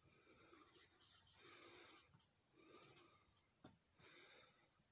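Near silence, with faint, intermittent scratching of writing on a surface and a small click.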